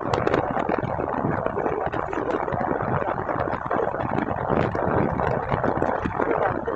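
Honda CB Shine motorcycle on the move: its single-cylinder engine runs steadily under heavy wind rush and road noise.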